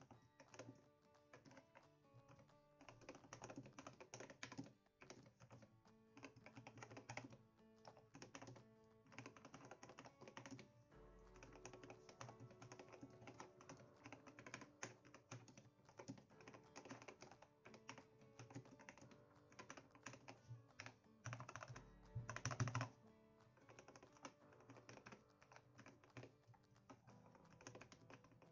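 Typing on a Zet Blade Optical keyboard with Kailh optical Black switches, fully lubed and fitted with O-rings: quiet, rapid keystrokes in bursts with short pauses, the lube having removed the spring clang these switches make unlubed. The busiest burst comes about two-thirds of the way through.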